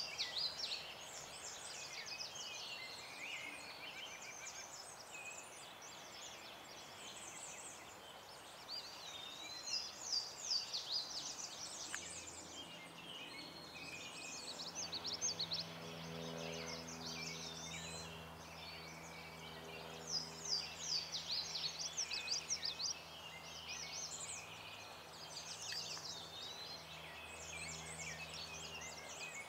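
Small songbirds chirping, trilling and whistling continuously, with many overlapping calls. About twelve seconds in, a low steady hum joins and runs under the birdsong.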